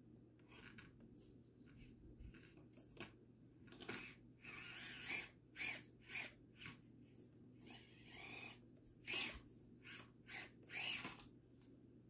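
Axial SCX24 Deadbolt 1/24-scale RC crawler's motor and drivetrain whirring in about a dozen short throttle bursts as it climbs over a concrete block, the bursts growing louder in the second half.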